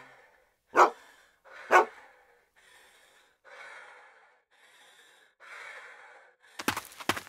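Two loud, sharp gasps about a second apart, followed by a person's heavy breathing in slow in-and-out breaths. Near the end a quick series of sharp taps begins.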